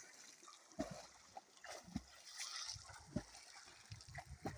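Quiet, irregular splashing and sloshing of muddy water with scattered soft knocks, from people wading and working a fishing net by hand.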